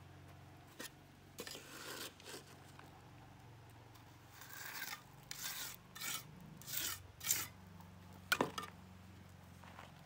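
A series of uneven scraping strokes, about half a dozen, followed by a sharp knock near the end.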